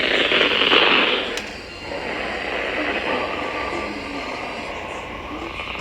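Weather radio receiver hissing with static, loud for about the first second and a half and then dropping to a lower, steady hiss, with a faint broadcast voice underneath.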